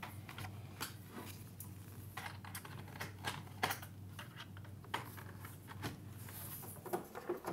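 Small irregular clicks and rustles of an AV cable being handled and its plugs pushed into a camcorder's output jack and a CRT television's composite input jacks, over a faint steady low hum.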